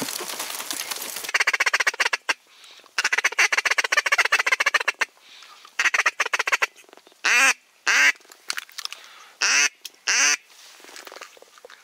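Duck quacking close by: several runs of rapid chattering quacks, then four single loud quacks near the end.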